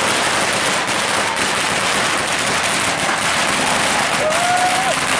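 Firecrackers crackling in a dense, continuous stream of rapid cracks.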